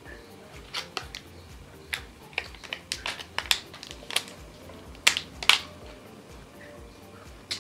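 Thin clear plastic wrapper crinkling and crackling as it is peeled off a small snack cake by hand: a run of irregular sharp crackles, the two loudest about five seconds in.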